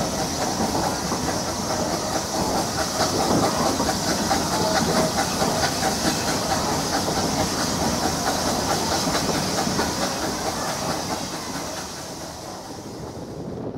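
Narrow-gauge steam train running, heard from a carriage: wheels clicking over the rail joints under a steady steam hiss from the Beyer-Peacock 0-6-0T tank locomotive. It grows quieter near the end.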